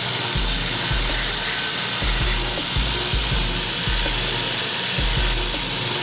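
Belt grinder running with a knife handle pressed against the sanding belt as it is shaped: a steady grinding hiss over the motor's hum.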